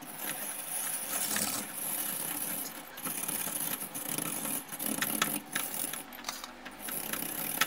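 Coconut half being shredded on a rotary coconut scraper: a steady scraping rasp with a mechanical hum and many small clicks as the gratings land on a steel plate.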